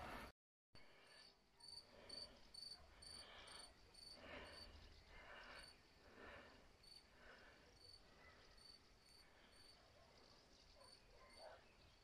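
Crickets chirping faintly, short high chirps repeating about three times a second.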